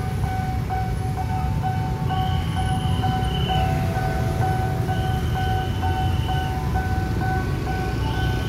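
Railway level-crossing warning bell ringing in a fast, evenly repeating electronic two-tone ding, over the low rumble of idling motorcycles and traffic. A longer, higher tone sounds about every three seconds.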